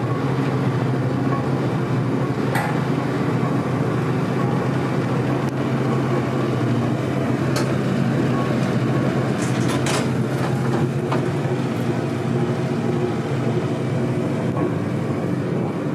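Hydraulic elevator car in travel: a steady, loud hum with a few sharp clicks and knocks in the car, around two and a half seconds in and again about ten seconds in.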